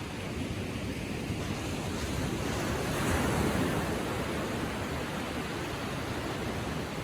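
Small ocean waves lapping on a sandy shore, one wave swelling and breaking about three seconds in before easing back to a steady wash, with some wind on the microphone.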